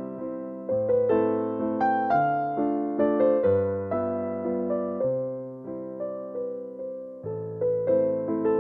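Background piano music: chords and a melody, each note struck and then fading.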